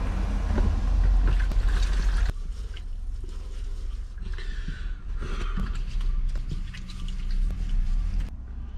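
Water splashing and dripping in a small basin as a face towel is soaked and used to wash the face, over a low steady hum that drops away near the end.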